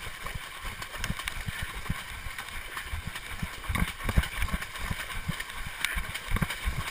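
Running footsteps splashing through shallow water on a flooded footpath, with irregular thudding footfalls several times a second over a steady wet hiss.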